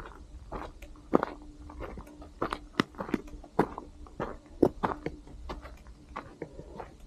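Hiking footsteps crunching on a gravelly, rocky desert trail, an uneven walking pace of about two steps a second.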